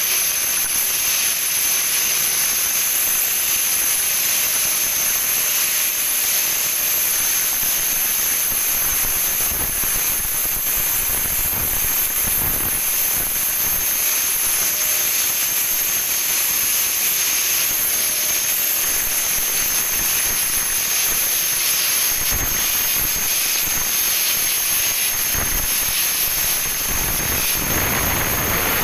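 Steady loud hiss of compressed-air spray equipment at work on steel girders, with a constant high-pitched whistle over it.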